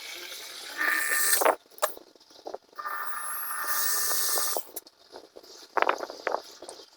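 A small power tool runs in two short bursts, each a steady whine with a hiss: the first about half a second long, the second about a second and a half. A few short clattering knocks follow near the end.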